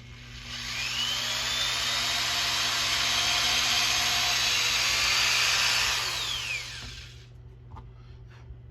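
Handheld power drill boring an angled hole into a plastic fitting. The motor spins up with a rising whine, runs steadily for about five seconds, then winds down and stops near the end.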